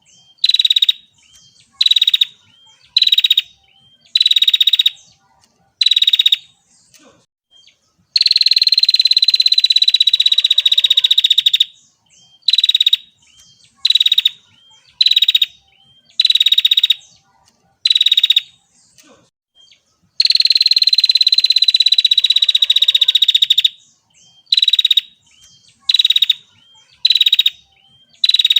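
Female prinia (prenjak) calling: a run of short sharp notes about one a second, broken twice by a long, fast buzzy trill of about three to four seconds, the sequence repeating.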